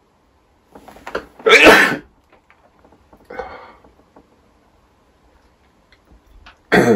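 A man sneezing hard once, with a short intake just before it, set off by a nasal swab having just been inside his nose. A softer burst follows about two seconds later, and another loud burst comes near the end.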